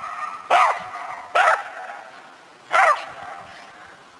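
A dog barking: three short, sharp barks, the first two about a second apart and the third about a second and a half later.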